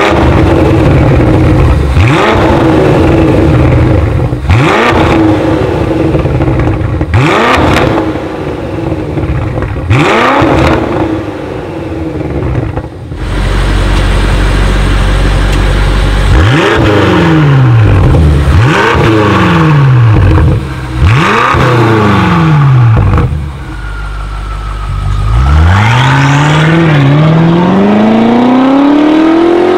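BMW X6 M's 4.4-litre twin-turbo V8 through a Fi Exhaust valved cat-back, valves open, blipped hard about eight times while standing. Near the end it pulls away under hard acceleration, the pitch rising long and steadily with one brief dip.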